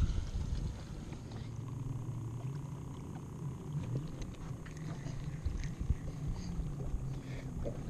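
Bow-mounted electric trolling motor humming steadily, over wind and water noise, with a few light clicks.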